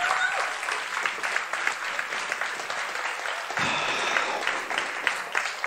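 Large audience applauding, a dense steady clapping that eases off slightly near the end.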